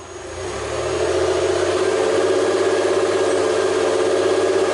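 Exhaust of a Ford 3.0 L 24-valve AJ (Duratec) V6 running, heard close at the tailpipe. It swells over about the first second, then stays steady and even.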